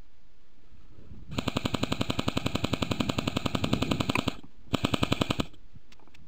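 Airsoft rifle firing on full auto at close range: a rapid, even burst of about three seconds, a brief pause, then a shorter burst.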